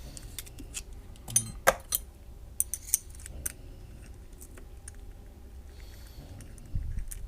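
Scattered small metallic clicks and clinks of a Phillips screwdriver working down the shackle hole of an American Lock 1100 padlock as it is taken apart, with a dull handling bump near the end.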